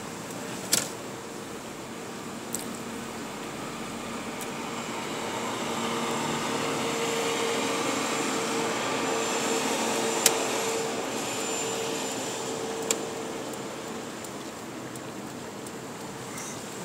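Inside a moving car: a steady engine and road hum with a held fan-like drone, swelling for several seconds in the middle and then easing, with a few sharp clicks.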